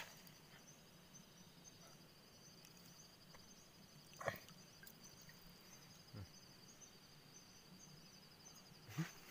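Near silence with a faint, steady, pulsing insect trill high in pitch, and a few soft brief clicks, the clearest about four seconds in.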